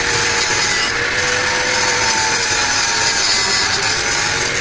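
Electric power tool running steadily under load: a loud, even hiss over a faint motor whine that holds one pitch.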